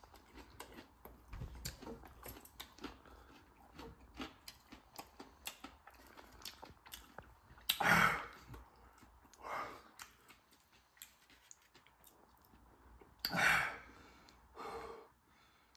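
A person chewing a mouthful of Reaper-spiced fried chicken tender with small wet, clicking mouth sounds, then heavy breaths out at about eight seconds and again near the end as the pepper's heat takes hold.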